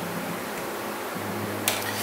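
Quiet background music with a low bass line, and one sharp metallic click about one and a half seconds in as the frying pan is lifted off the portable gas stove's grate.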